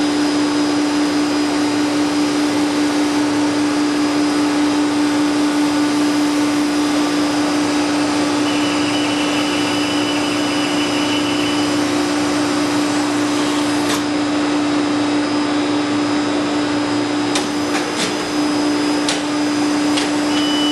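Steady machinery noise of an automated polyurethane pouring line: a continuous hum with one strong steady low note under a hiss. About halfway through a thin high whine sounds for a few seconds, and several sharp clicks come in the last seven seconds.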